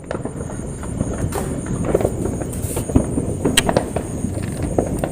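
New Year's Eve fireworks going off: many irregular sharp cracks and pops over a continuous rumble of explosions.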